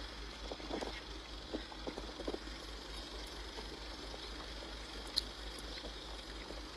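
Steady low hum and road noise of a slow-moving vehicle, with scattered short soft knocks.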